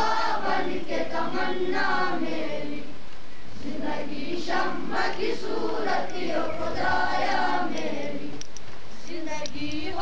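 A group of schoolchildren singing an Urdu prayer together, a slow melodic chant sung in unison.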